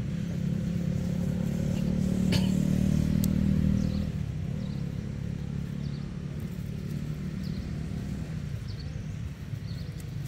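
Low, steady drone of a motor vehicle's engine, strongest for the first four seconds and then easing off. Faint short high chirps come through in the second half.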